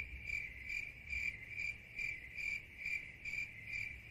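A cricket chirping steadily: short high chirps repeating evenly, about two a second.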